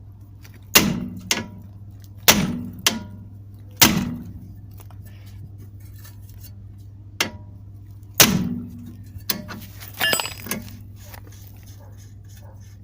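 Hammer blows on the steering knuckle, metal on metal, to knock a tie rod end's tapered pin loose from its seat. About ten hard strikes in uneven groups, each ringing briefly, with a pause in the middle of the sequence.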